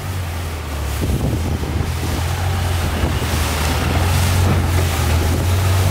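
Motorboat running at speed: a steady low engine drone under the rush of water and wind buffeting the microphone, growing a little louder about three and a half seconds in.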